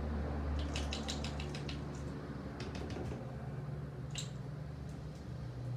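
Slime being handled: a few soft clicks and squishy crackles spread out, over a steady low hum.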